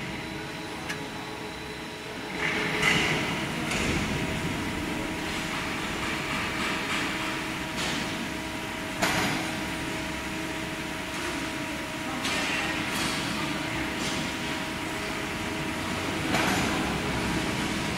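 Horizontal metal band saw with automatic angle rotation running with a steady machine hum. Sharp clunks come about three seconds in, about nine seconds in and near the end.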